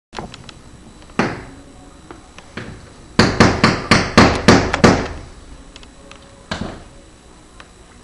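Kookaburra striking the window glass: sharp knocks, one about a second in and another near three seconds, then a rapid run of about eight in under two seconds, and a last one about six and a half seconds in.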